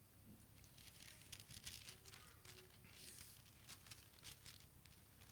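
Faint, irregular rustling of thin paper, like Bible pages being turned, strongest from about one to four and a half seconds in.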